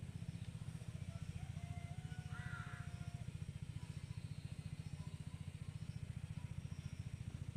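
A steady low engine-like drone with a rapid, even pulse. A brief faint higher-pitched sound comes about two and a half seconds in.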